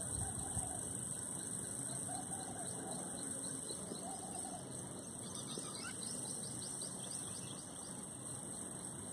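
Outdoor ambience: a steady high hiss with faint bird chirps, a quick run of them about five to seven seconds in.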